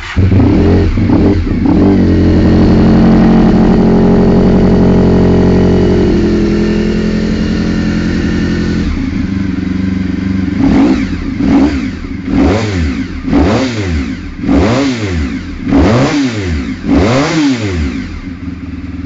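Honda NR750 (RC40) oval-piston V4, just fired up, running steadily and easing down a little after about six seconds. About ten seconds in it is revved in a series of about eight quick throttle blips, each rising and falling, roughly one a second.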